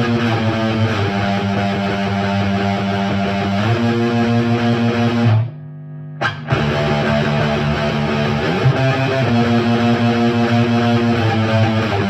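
Electric guitar with Bare Knuckle Mississippi Queen P90 pickups, played through a Diezel Hagen tube amp head and a Marshall Mode Four cabinet with Celestion G12-K100 speakers. It plays a riff of held chords that stops short about halfway, gives one quick stab, then starts again.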